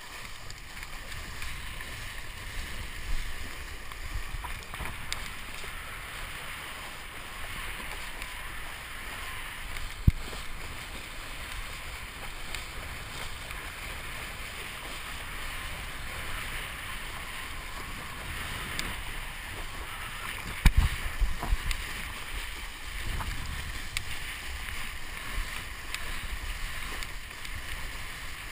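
Water rushing and spraying under a kiteboard planing across the sea, with wind buffeting the camera's microphone as a steady hiss and rumble. A sharp knock comes about ten seconds in, and a burst of loud thumps around twenty-one seconds in.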